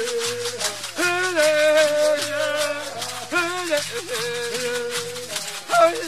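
Background music: a shaken rattle over a melody of long held notes that bend in pitch.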